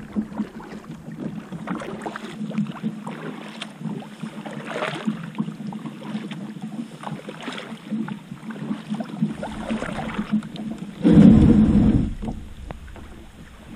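Kayak paddle strokes splashing and dripping as a Wilderness Systems ATAK 120 is paddled along, with irregular small splashes throughout. About eleven seconds in comes a loud rush of noise lasting about a second as the plastic hull runs up onto the muddy bank.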